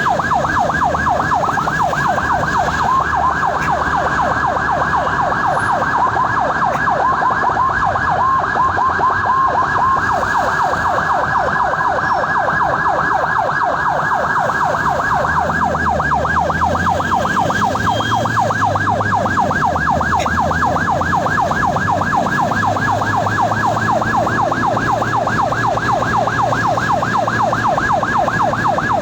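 Ambulance electronic siren on a fast yelp: a rapid rising-and-falling warble repeating several times a second. A vehicle's low engine and road rumble runs underneath.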